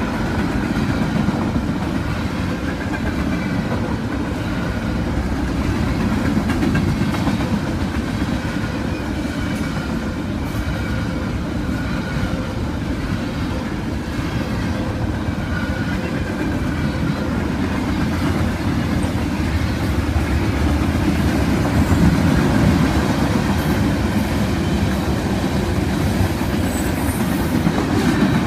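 Freight train cars rolling past at speed: a steady low rumble of steel wheels on the rails.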